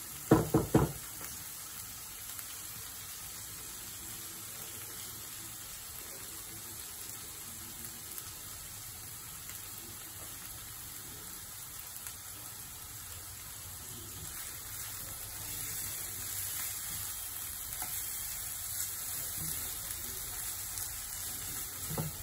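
Chicken liver and gizzard masala sizzling steadily in oil in a nonstick frying pan over a lowered gas flame. Two sharp knocks of the spatula against the pan come about half a second in, and the sizzle grows a little louder in the second half.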